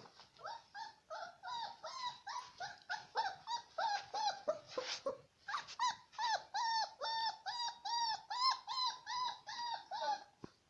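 A puppy whimpering in a rapid run of short, high, whining cries, about three a second, stopping just before the end.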